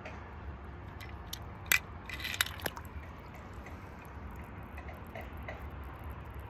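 A die-cast toy car dropped into a swimming pool: a few short clicks and a small splash, the loudest about two seconds in. A low steady hum lies under it.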